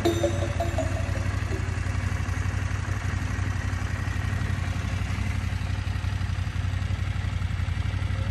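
Adventure motorcycle engine running at low, steady revs as the bike is ridden slowly over rough ground. The last of some background music fades out in the first second.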